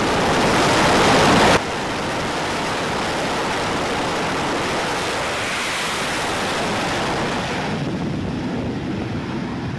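Jet engines running at high power on an aircraft carrier's flight deck: a loud, steady roar. About a second and a half in it drops suddenly to a slightly lower level and carries on steadily, thinning a little near the end.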